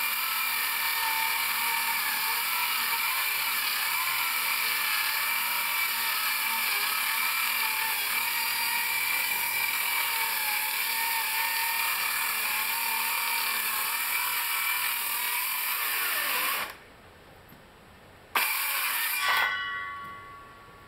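Ridgid Gen5X cordless 7-1/4-inch circular saw running under load as it rips through four stacked sheets of 1/2-inch CDX plywood, a steady whine. It cuts off sharply near the end, comes back briefly with a short loud burst, then winds down with a falling whine as the blade coasts to a stop.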